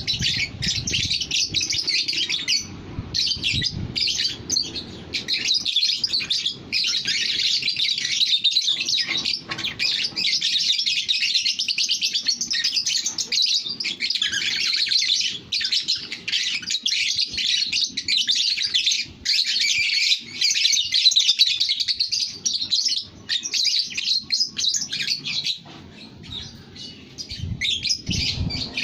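Lovebird singing in one long, unbroken stream of rapid high-pitched chattering.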